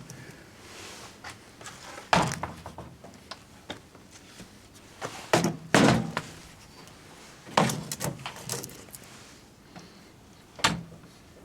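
Microwave door and a metal aerosol can being handled: a run of separate clunks and knocks, five of them louder than the rest.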